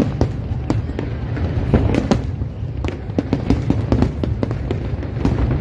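Aerial fireworks bursting in rapid succession: many sharp bangs and crackles, several a second, over a steady low rumble.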